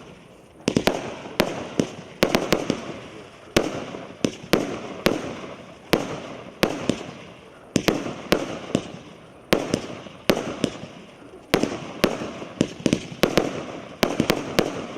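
A 64-shot, 1-inch fireworks cake, the Maxsem MC116 'Scintillant', firing in rapid succession: sharp launch reports about two a second, some in quick pairs, each followed by a fading hiss.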